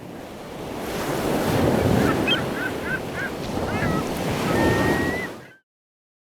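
Blizzard wind gusting hard across the microphone, with the rush of heavy surf, swelling and easing. A few faint high chirps and a brief high whistle ride over it, and it cuts off suddenly near the end.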